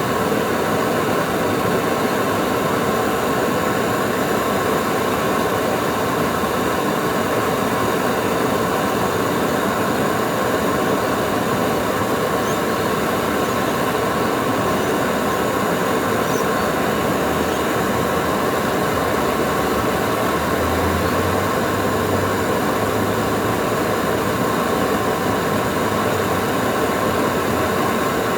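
Gas burner flame running steadily and loudly, heating a small steel tool to red hot for quenching.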